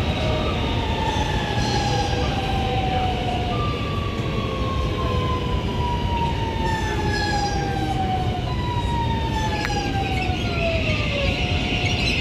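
Traction motor inverter whine from an Alstom Metropolis II 8900-series train's IGBT VVVF drive: a series of tones, each gliding down in pitch over a few seconds before a new one starts higher, over the steady rumble of the train running on the rails.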